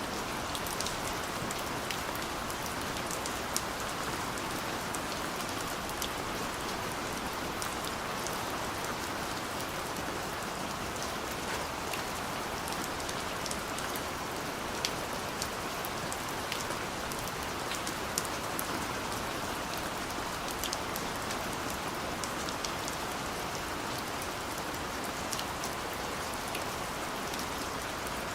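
Steady rain falling, an even hiss with many scattered drops ticking on a surface.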